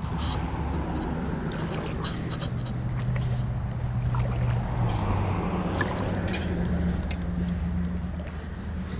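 A steady low motor hum made of several held tones, stepping up in pitch about five seconds in, with scattered light clicks over it.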